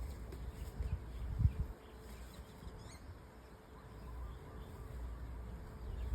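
Outdoor background: a low rumble with a few dull thuds in the first two seconds, like wind or handling on the microphone, and a faint bird chirp about three seconds in.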